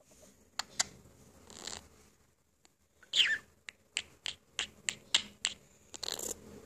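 Pet budgerigar chattering: sharp clicks and short chirps, with a falling whistle about three seconds in followed by a quick run of clicks.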